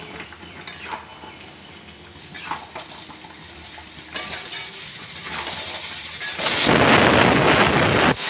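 Chicken pieces with masala being stirred in a hot steel kadai with a metal spatula: scraping and light clinks of metal on the pan, then a loud sizzling hiss for about two seconds near the end.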